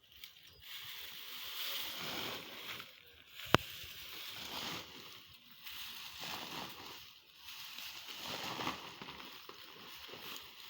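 A run of repeated swishing, scraping noises, each about a second long, with one sharp click about three and a half seconds in.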